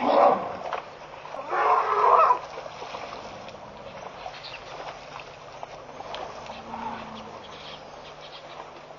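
African elephant drinking at a waterhole: two splashy gushes in the first couple of seconds as it squirts trunkfuls of water into its mouth, then only faint background noise.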